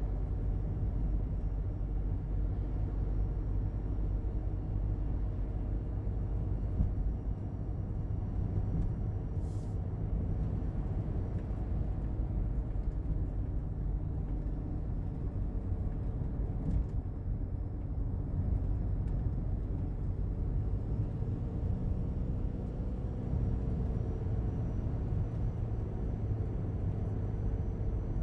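Daihatsu Hijet Cargo engine running steadily, the low engine hum even throughout with a faint thin high whine over it and a couple of brief clicks, while its abnormal noise is being checked.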